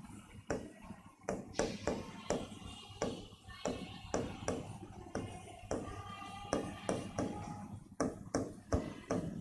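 Marker writing on a whiteboard: a quick, irregular run of taps and short strokes as letters are formed.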